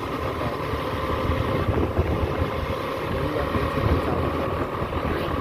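A vehicle's engine running steadily while riding along a road, with wind blowing on the microphone.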